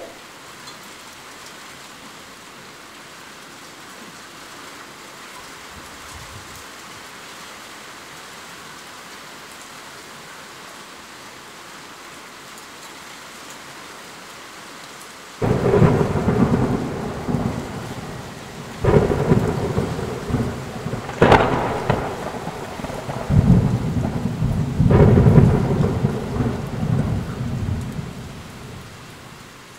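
Steady heavy rain falling. About halfway through, a sudden loud peal of thunder breaks in and rolls on, with several sharper cracks, before dying back to the rain near the end.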